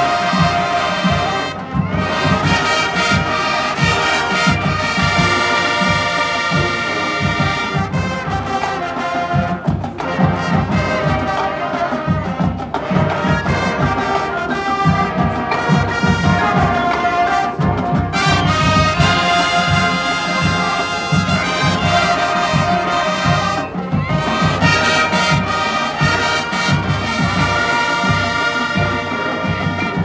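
High school marching band playing: brass sustaining chords over the drumline's steady beat.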